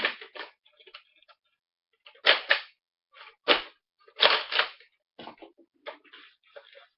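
Nerf blaster being worked and fired: a string of sharp plastic clacks and short bursts, loudest about two, three and a half and four seconds in.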